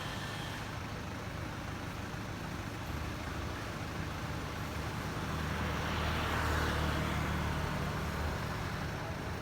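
Road traffic: a steady low engine rumble, with a vehicle passing that swells to its loudest about six to seven seconds in and then fades.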